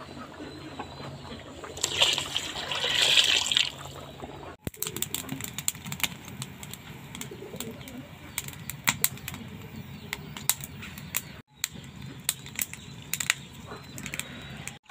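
Rice and milky liquid cooking in a pot: it bubbles with frequent small pops and clicks, and a spoon stirs and sloshes it, loudest about two to three seconds in.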